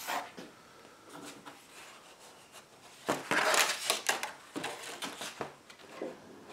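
Thin maple veneer sheets being lifted and shuffled on cardboard: a dry papery rustling and crackling in irregular bursts, loudest about three seconds in.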